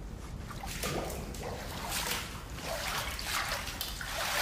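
Bathwater splashing and trickling in irregular bursts as a person moves about in a bathtub.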